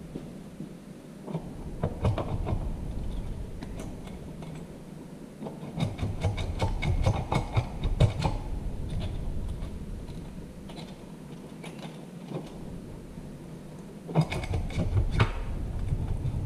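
Hand tools and metal parts clicking and clinking in three bursts of quick clatter with quieter gaps between, during teardown of a Ford E4OD automatic transmission.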